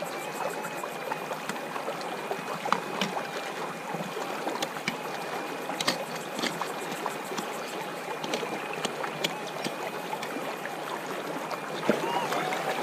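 Creek water running steadily, with scattered sharp knocks and scrapes of a prospecting pick digging into the gravel and rock of the bank. A faint steady high whine runs beneath, wavering near the end.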